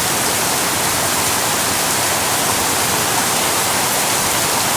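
Heavy tropical rain pouring down, a loud steady hiss with no letup.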